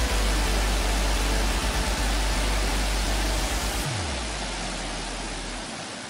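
Steady rushing noise of open-air wind and water on the fiord, with a deep rumble underneath that drops away about four seconds in. The whole sound slowly fades out.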